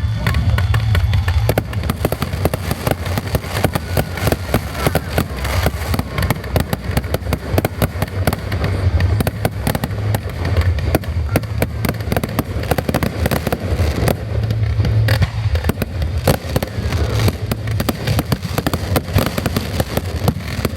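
Fireworks display going off in a dense, unbroken barrage of rapid bangs and crackle, many reports a second.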